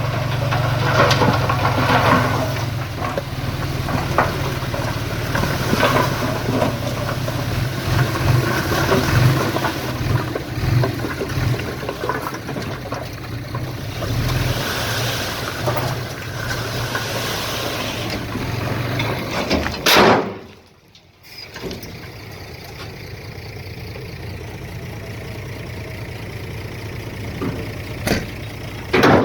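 Diesel engine of heavy earthmoving machinery running under load, with scattered knocks and clanks. About two-thirds through the sound drops away for a moment and comes back quieter.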